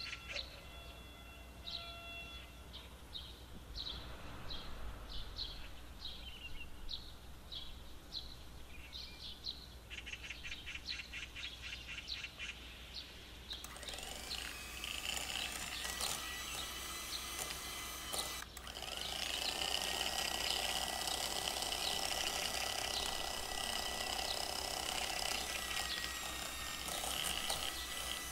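Birds chirping in short, evenly spaced calls for the first half. About halfway a louder, denser whirr with a steady whine takes over: an electric hand mixer beating cream cheese in a glass bowl, its whine climbing in pitch and then holding after a brief dropout.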